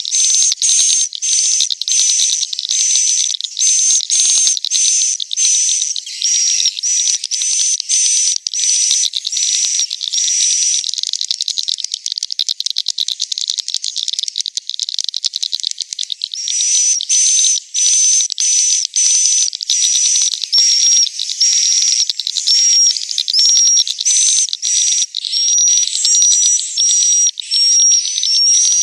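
Swiftlet roosting-call recording: a dense, high twittering of swiftlet chirps, pulsing at about two a second, that blurs into a continuous twitter for a few seconds midway before the pulsing returns. It is the lure call that swiftlet farmers play to draw swiftlets into a bird house to roost.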